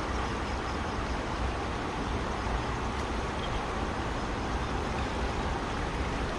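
Steady rush of a fast-flowing river, an even noise with no breaks.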